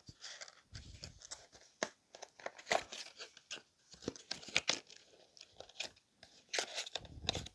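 Small cardboard box and its clear plastic seal being torn and pried open by hand: irregular crackling, ripping and crinkling, busiest near the end.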